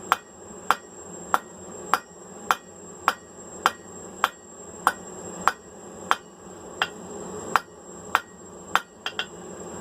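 Blacksmith's hand hammer striking hot rebar on an anvil, squaring up and tapering the end, in a steady rhythm of sharp ringing blows a little under two a second, with a quick double strike near the end. A faint steady high whine runs underneath.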